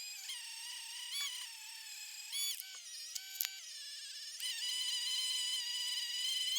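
Cordless Dremel Lite rotary tool running at high speed with a steady high whine, its pitch dipping briefly several times as the thin bit is pressed into the blade next to the handguard. It gets louder about four and a half seconds in.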